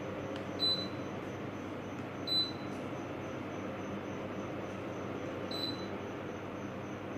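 Sharp AH-AP9HHY air conditioner indoor unit running its fan steadily. Three short high electronic beeps come through, the first two louder, under a second in and about two seconds in, the third fainter around five and a half seconds in.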